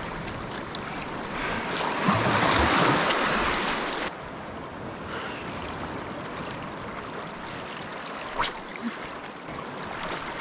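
Waves washing on the shore, one surge swelling about two seconds in and falling away abruptly about four seconds in. A single sharp click comes near the end.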